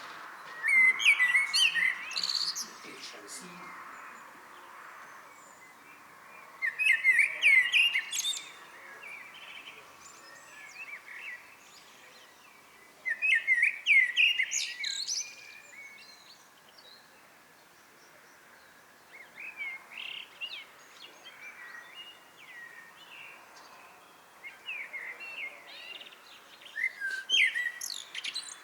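Common blackbird singing: separate phrases of low fluting notes, each ending in a higher twitter, coming about every six seconds.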